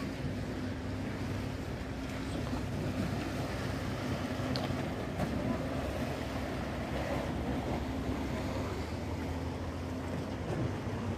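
Wind blowing across the microphone over the sea washing against the pier and its rock wall: a steady, low noise.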